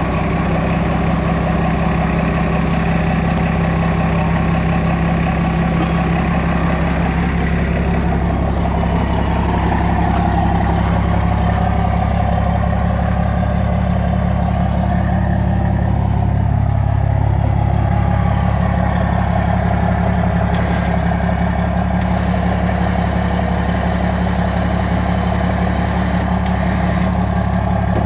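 Pickup truck engine idling steadily, a low, even hum.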